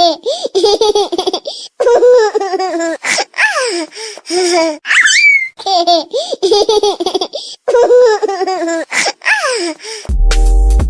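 Laughter ringtone: a high-pitched voice laughing in quick bursts, broken by a squealing rise, the same stretch of laughter repeating as a loop. About ten seconds in it cuts to electronic music with a deep bass beat.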